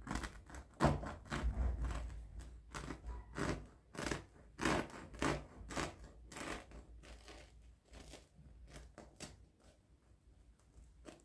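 A knife sawing back and forth through the crisp crust of a freshly baked round loaf of bread, a rasping crunch on each stroke, about one and a half strokes a second, growing fainter in the second half as the blade reaches the soft crumb and the bottom.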